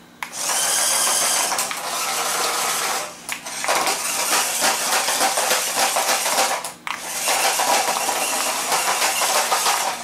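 Small battery-powered RC stunt car's electric motors whirring as it spins and tumbles on a hard floor, its plastic wheels and body clattering. It runs in three spells, with brief stops about three seconds in and again near seven seconds in.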